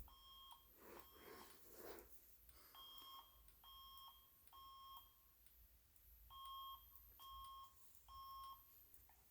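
Fire alarm voice-evacuation speaker faintly sounding the temporal-three alert tone: groups of three short beeps at one pitch, then a pause, the evacuation signal that comes before the spoken message.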